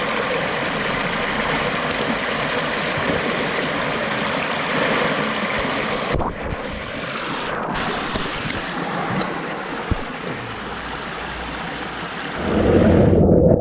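Water of a small brook trickling and running over stones, a steady rushing hiss. Near the end a louder, lower rush takes over.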